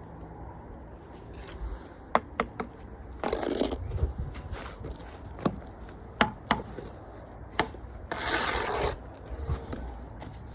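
Masonry work: a trowel scraping across mortar in two passes, the longer one near the end, with scattered sharp taps between them.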